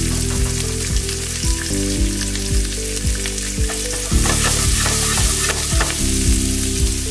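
Chopped onion, garlic and peppers sizzling in hot oil in a frying pan, over background music with a steady beat of about two thumps a second.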